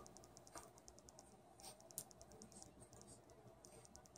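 Near silence: room tone, with a faint, rapid, evenly spaced high ticking and a few soft clicks.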